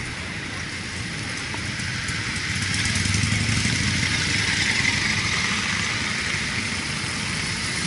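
A line of motorcycles riding past one after another, their engines running. The sound grows louder about two and a half seconds in as one bike passes close, then eases slightly.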